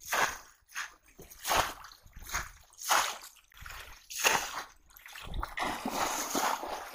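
Shallow river water splashing as a bamboo polo fish trap is worked by hand while wading: a string of separate splashes about a second apart, turning into steadier sloshing over the last second and a half.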